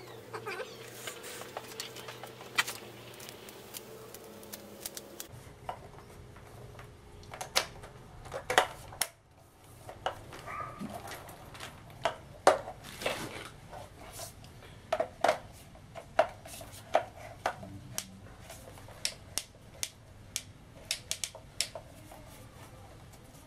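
Hard plastic pressure-washer parts being handled and fitted together: irregular sharp clicks and clatter as the spray gun, lance and hose are pushed and snapped into place, coming thicker after the first few seconds.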